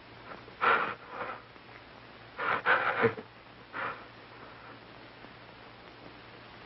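Several short, breathy, wordless vocal outbursts from a person in distress, in the first four seconds, over the steady hiss and low hum of an old film soundtrack.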